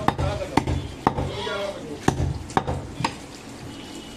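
Heavy butcher's knife chopping goat meat against a wooden chopping block: six sharp chops in two sets of three, about half a second apart, stopping about three seconds in.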